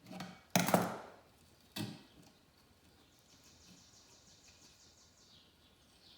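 Two sharp handling knocks about a second apart, the first louder and longer, from working jute twine around a metal ceiling fan blade bracket. A faint, high, rapid trill follows.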